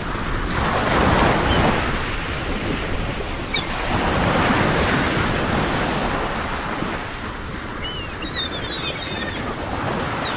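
Wind rushing over the microphone and open water, swelling and easing in slow gusts. A few faint high chirps come through about three and a half seconds in and again near the end.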